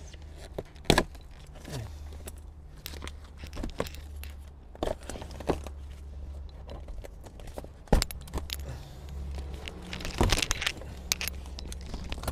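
Scattered sharp knocks and clicks as tools and car interior parts are handled during stripping of the cabin, over a steady low hum. The loudest knocks come about a second in and about eight seconds in, with a quick run of clicks around ten seconds.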